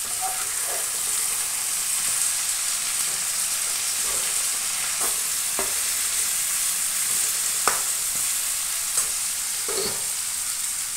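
Diced brinjal, tomato and green chilli sizzling as they fry in a kadai, with a steady hiss. A metal slotted spatula stirs them, scraping and tapping against the pan now and then.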